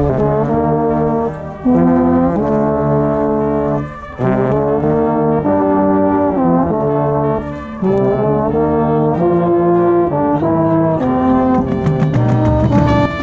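Marching band brass playing loud, sustained chords in phrases, with short breaks between them. Sharp drum and cymbal strikes pile in near the end.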